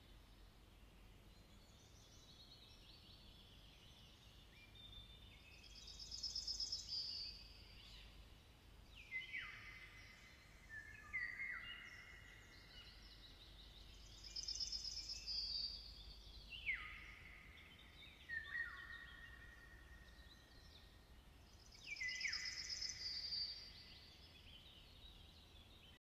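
Faint wild birdsong: a song phrase with a high trill and falling whistled notes repeats about every eight seconds, three times, over a low steady rumble.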